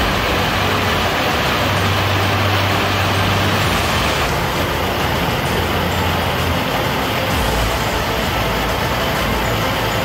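Steady rushing of a high waterfall, Steall Falls with its single 120-metre drop, a dense even noise of falling water.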